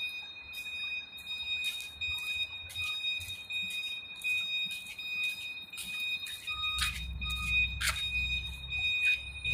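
A steady high-pitched whine runs throughout, with short sharp chirps or ticks about twice a second. A low hum comes in about seven seconds in.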